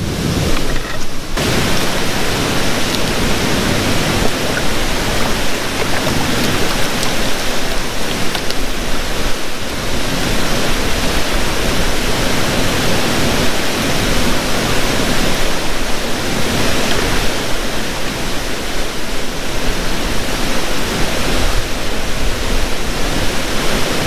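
Loud, steady rush of a waterfall and fast-flowing creek water.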